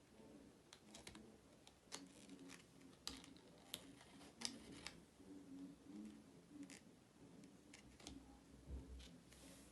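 Faint scattered clicks and taps of small objects being handled, irregular, about a dozen over the stretch.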